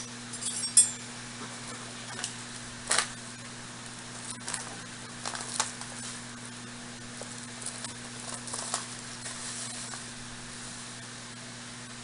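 Plastic drink-mix pouch crinkling as it is handled, in scattered short rustles and crackles.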